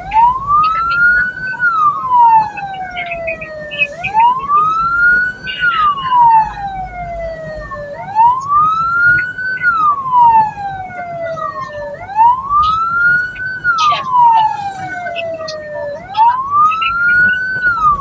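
Vehicle siren wailing in a slow, even cycle: the pitch rises for about a second and a half, then falls for about two and a half seconds, repeating every four seconds, over a low rumble of road and engine noise.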